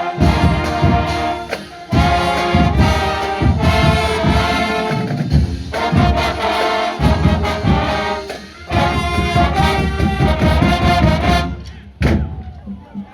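College marching band playing: trumpets and trombones over a steady drumbeat. The tune breaks off near the end, followed by one last short hit.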